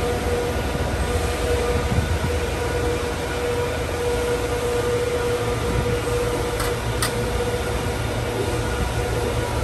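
Servo CNC press brake standing ready with its drive running: a steady machine hum with a low rumble and one steady whine. Two short sharp clicks about half a second apart, a little past the middle.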